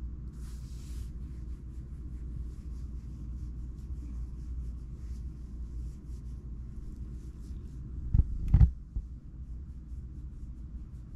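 Scottish Fold cat purring as a steady low rumble while its chin is scratched. A brief rustle sounds near the start, and two dull knocks just past eight seconds in are the loudest sounds.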